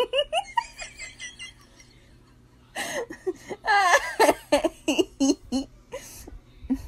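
A person laughing in repeated short bursts. The laughter stops for about a second and a half, then comes back louder and runs on in giggling fits.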